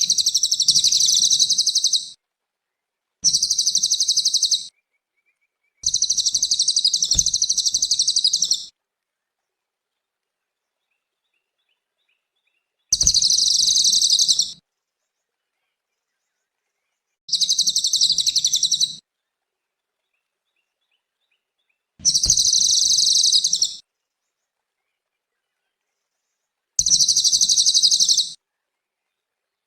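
Cililin bird singing in seven separate bursts of rapid, high-pitched song, each about one and a half to three seconds long, with dead-silent gaps between them, as in an edited masteran recording looped for cage birds to copy.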